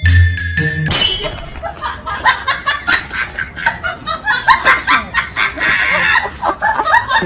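A few mallet-percussion notes like a marimba, then from about a second in hearty laughter in quick, repeated bursts.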